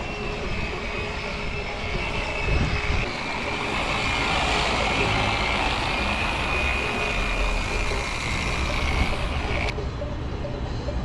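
Electric pressure washer running with a steady high whine and spray hiss, cutting off suddenly near the end.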